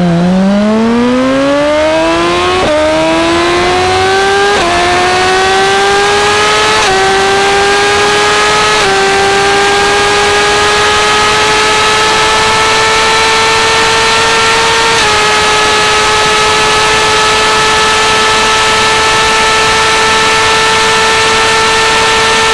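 Suzuki GSX-R1000's inline-four through a Yoshimura exhaust at full-throttle acceleration. The revs climb from low in first gear, with five quick quickshifter upshifts about 3, 5, 7, 9 and 15 seconds in. In the top gears the note rises ever more slowly and is nearly steady at the end as the bike nears top speed.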